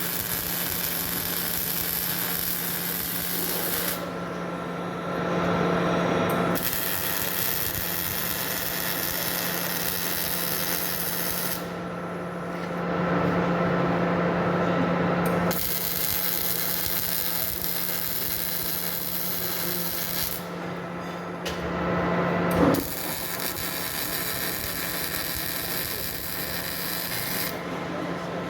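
Semi-automatic MIG welding arc crackling in runs of several seconds, with short breaks between welds, over a steady electrical hum.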